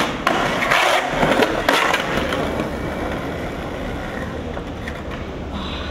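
Skateboard trucks grinding and scraping along a low street ledge in a slappy grind, with several sharp clacks in the first two seconds. After that comes a steadier, duller rolling noise.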